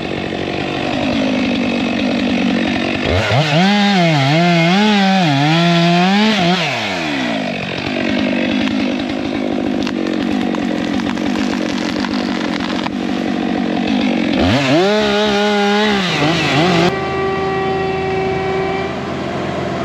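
Chainsaw cutting through wood, the engine revving up twice into a high, wavering whine and dropping back as it bites into the cut. Near the end a steadier, lower engine sound takes over.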